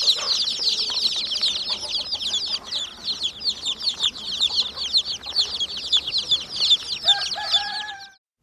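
A brood of chicks peeping: a dense stream of many overlapping high, short, down-sliding peeps. About seven seconds in, a few lower, longer calls join, and the sound cuts off abruptly just before the end.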